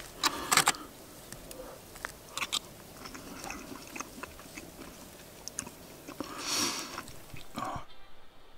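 Eating from an aluminium foil parcel: a metal fork clicking and scraping against the foil and food, with chewing in between. There are a few sharp clicks in the first second and a brief louder rustle near the end.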